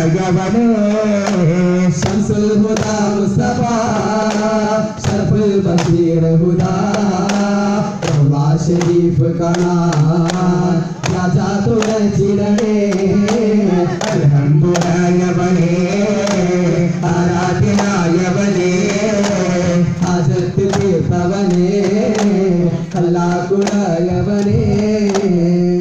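Duff muttu: men's voices singing a devotional song to the beat of daff frame drums, struck in frequent sharp strokes.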